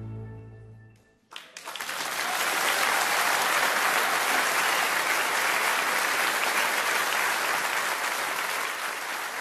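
An orchestra's final held chord fades away within the first second; after a brief hush a large theatre audience starts applauding, building quickly to steady, loud clapping.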